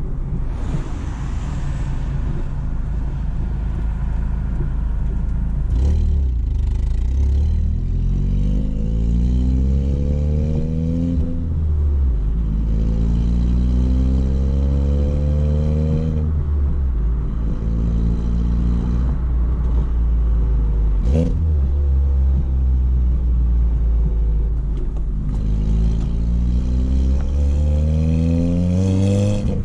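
Exhaust of a 2016 VW Golf R's turbocharged 2.0-litre four-cylinder, running a catless downpipe with the factory resonator and rear muffler, heard from the back of the moving car. The note climbs in pitch and drops back several times as the car accelerates through the gears, with one sharp crack about two-thirds of the way through.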